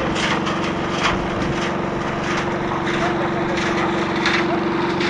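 Small engine of a concrete mixer running steadily, with repeated short scrapes and knocks from work on the site.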